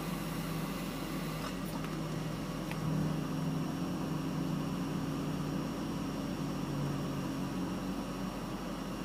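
Handheld hair dryer running steadily, a motor hum with a fan hiss. A few light clicks come between about one and a half and three seconds in, and the hum gets a little louder around three seconds.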